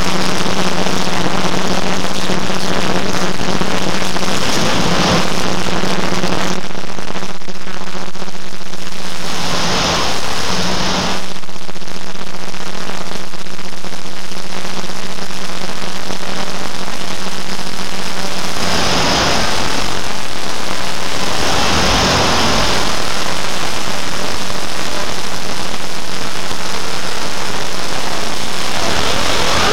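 A dense, loud wall of noise from dozens of overlaid, sped-up video soundtracks blurring into a jet-engine-like roar. A steady low hum runs under it until about two thirds of the way through, and the roar dips briefly about ten seconds in.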